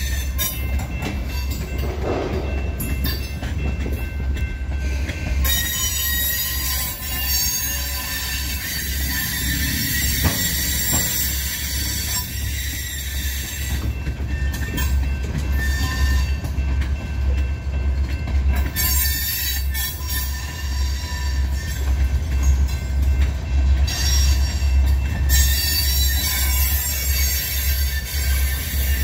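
Freight cars (tank cars, then covered hoppers) rolling slowly past, their steel wheels squealing on the rail over a steady low rumble. It grows louder over the last several seconds as the Great Lakes Central locomotives shoving the train draw near.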